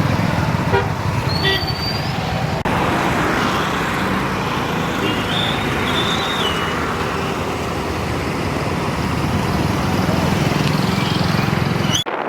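Steady road traffic noise with engines running, and a short high-pitched toot about five seconds in.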